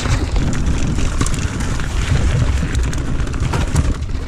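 Mountain bike riding fast down rocky forest singletrack: tyres rumbling and crunching over stone and gravel, with many sharp clatters from the bike over the rocks. Heavy wind buffets the chest-mounted action camera's microphone.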